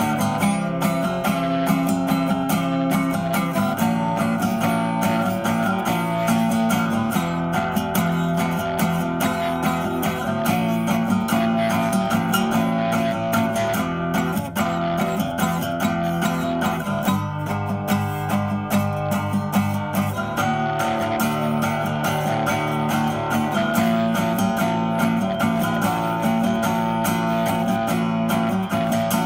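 Background music led by strummed and picked guitar with a steady beat.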